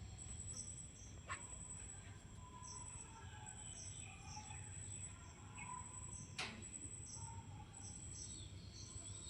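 Faint outdoor ambience: birds chirping here and there over a steady high insect drone, with two sharp clicks, one a second or so in and one about two-thirds of the way through.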